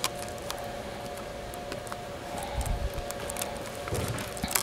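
Faint clicks and light taps as fingers press a plastic cover and antenna wires into place inside a Panasonic Toughbook CF-30, over a steady hum. A dull bump comes just past the middle and another near the end.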